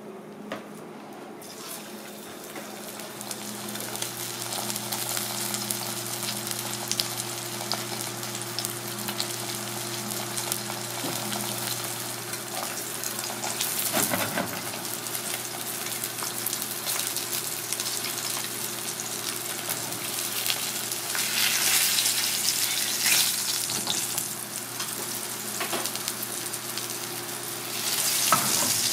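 Flour-dredged red sea bream fillet sizzling in hot oil in a small iron pan. The frying hiss starts about a second and a half in and swells louder twice near the end.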